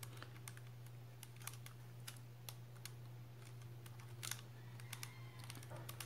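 Stickerless 4x4 Rubik's cube being twisted by hand: faint, irregular plastic clicks as its layers turn, over a steady low hum.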